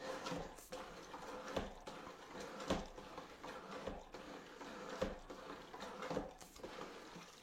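Flat mop head being worked back and forth through the wash slot of a plastic mop bucket: faint plastic sliding and scraping with scattered soft knocks.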